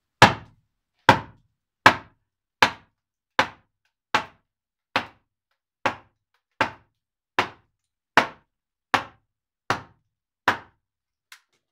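Wooden mallet striking the back of an axe set into a log, splitting it by hand for wooden roof shingles: fourteen sharp knocks about one every 0.8 seconds.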